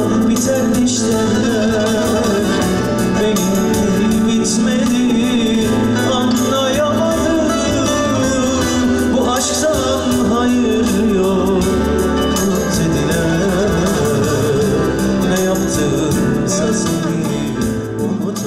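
A male singer performing a Turkish song live with instrumental accompaniment, his voice wavering in ornamented lines over the band; the music fades near the end.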